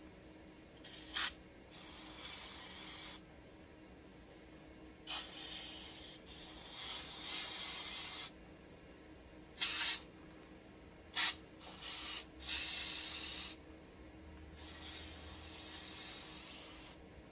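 Aerosol cleaner hissing out through a straw in repeated bursts, some brief spurts and some held for a second or two, as it is sprayed into the carburetor cavity of a McCulloch Pro Mac 700 chainsaw to clear out gummed-up old fuel residue.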